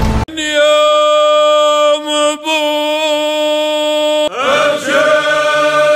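A man's solo voice chanting in Arabic, mostly unaccompanied: one long held note, then from about four seconds in a second phrase whose pitch wavers and bends.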